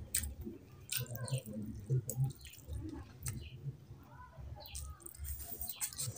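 Close-miked eating sounds: wet chewing and lip-smacking clicks, with the squelch of a hand mixing rice and curry.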